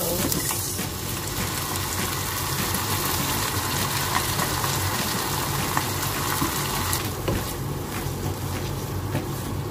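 Tomato sauce poured into a hot frying pan of sautéed onions and stirred in with a wooden spatula: a steady sizzle that softens about seven seconds in, over a low steady hum.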